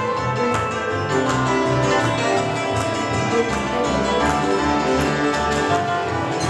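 Slovak folk string band playing an instrumental passage: a cimbalom struck rapidly with hammers, over fiddles and a bowed double bass.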